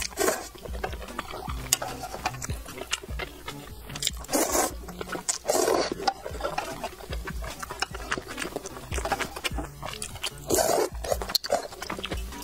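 Close-miked eating sounds: noodles slurped from a spicy broth, with wet chewing and lip smacks, and a few louder slurps about four and six seconds in and again near the end.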